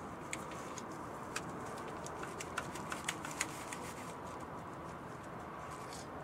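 Light plastic clicks and taps from an evaporative canister purge solenoid and its hoses being handled and pushed back onto their mounting bracket, about a dozen small clicks over the first four seconds, over a steady background hiss.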